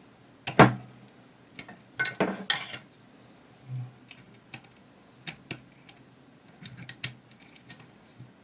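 Small steel rifle parts clicking and tapping in the hands as a spring-loaded plunger is pushed into a captive pin against a punch. There is one sharp click about half a second in and a cluster of taps around two seconds in, then lighter, scattered ticks.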